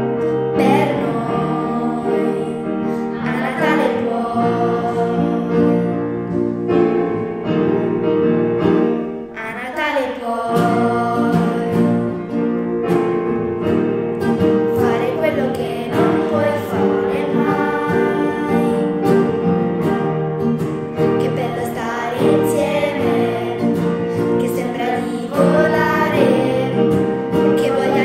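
A group of children singing a Christmas song, accompanied by piano and acoustic guitar, with a short break in the voices about ten seconds in.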